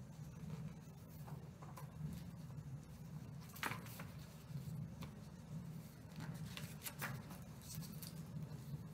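Faint rustling and soft clicks of a picture book's paper pages being handled and turned, with a couple of sharper paper sounds about four and seven seconds in, over a low steady room hum.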